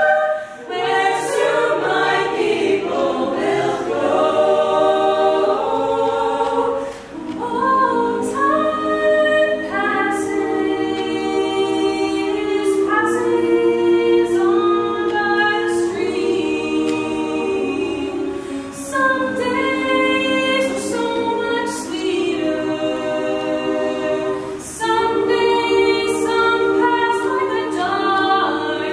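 Small mixed youth choir singing a cappella in several parts, holding chords in long phrases, with brief breaths between phrases.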